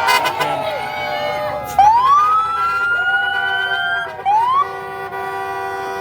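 A siren sounding, sweeping up in pitch about two seconds in and climbing slowly, then rising again briefly a little later, over a layer of several steady horn-like tones.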